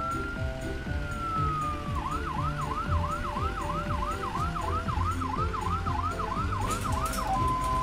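Ambulance siren. A slow wail rises and falls, then about two seconds in it switches to a fast yelp sweeping up roughly two and a half times a second, and near the end it changes to a two-tone hi-lo.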